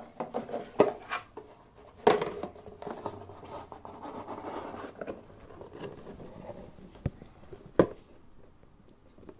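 Handling of a homemade wooden puzzle box: scraping and rubbing on the box with a few sharp clicks and knocks, the loudest near the end.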